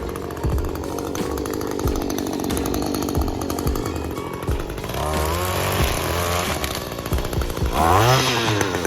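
Gas string trimmer (weed eater) running steadily, then revving up and back down twice near the end.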